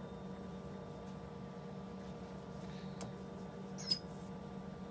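Quiet room with a steady low hum, and faint clicks from hands handling yarn and a crochet hook while tying off. The loudest is a sharp click just before the end.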